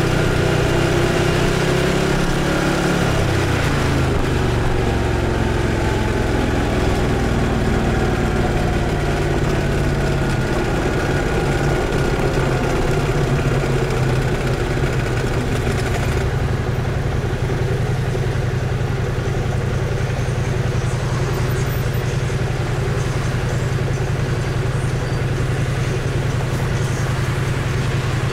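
BMW C 650 GT maxi-scooter's parallel-twin engine under way with wind and road noise, its pitch falling as it slows. About halfway through the wind noise drops away and the engine settles to a steady idle as the scooter stops in traffic.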